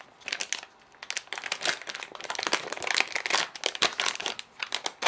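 Plastic packaging crinkling and rustling in irregular handfuls as a radio case is taken out of its wrapping.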